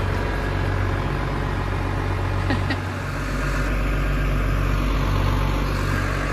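Farm tractor's diesel engine idling steadily, a constant low hum.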